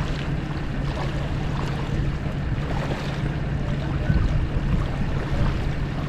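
Wind and small waves lapping at the water's edge, a steady rushing noise with a constant low hum underneath and a few faint splashes.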